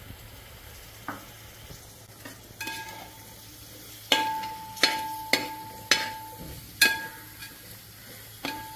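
A metal ladle stirs mint leaves into frying biryani masala in a metal pot. It scrapes and knocks against the pot about half a dozen times, each knock ringing briefly, over a light sizzle.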